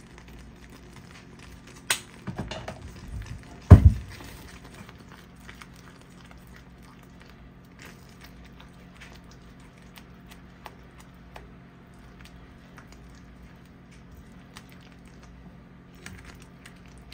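Silicone spatula stirring thick gravy in a frying pan: faint scraping and soft ticks over a low steady hum. A sharp click about two seconds in and a loud knock just under four seconds in.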